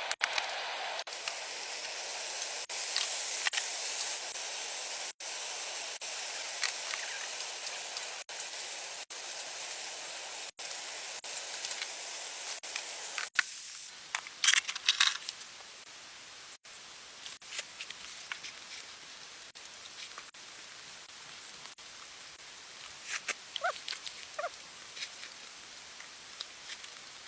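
Camp cooking sounds: a steady hiss for the first dozen seconds or so, then quieter with scattered clinks and light taps.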